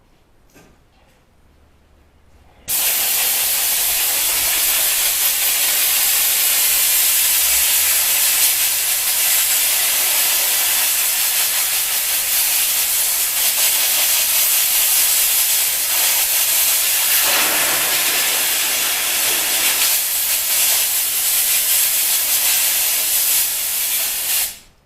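Compressed air hissing steadily as it blows dust out of a vacuum cleaner's brush roll, starting about three seconds in and cutting off just before the end.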